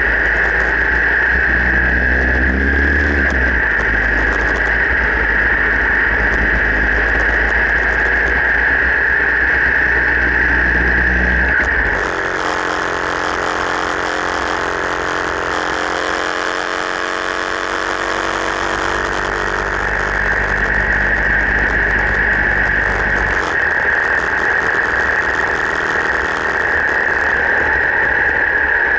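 Harley-Davidson V-twin engine running as the motorcycle is ridden, over a steady rush of wind noise on the camera microphone. About twelve seconds in the deep rumble drops away and the engine's pitch falls slowly for several seconds. The deep rumble comes back near the end.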